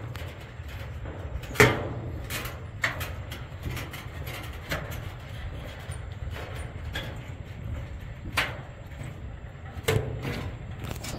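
Footsteps on the wooden planks of a footbridge: irregular sharp knocks about every second, over a steady low rumble.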